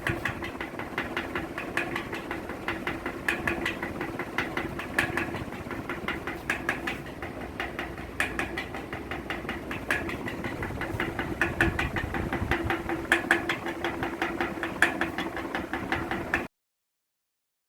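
Ceiling fan running with a steady hum and a repeated squeaking and rattling as it turns: the 'kees kees' squeak noise. It cuts off suddenly near the end.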